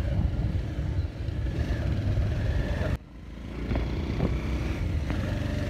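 Street traffic noise with a low rumble, dropping suddenly about halfway through and then building back up.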